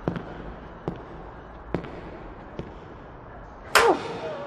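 Sharp single taps about once a second, then near the end a sudden loud hit with a short cry that falls in pitch, as the man attacks the girl.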